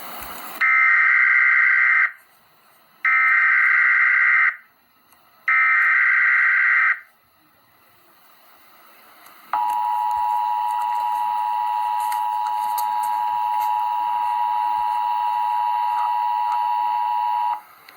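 Emergency Alert System tones: three bursts of warbling SAME header data, each about a second and a half long and a second apart, then, after a short pause, the steady two-tone EAS attention signal held for about eight seconds, announcing an incoming warning.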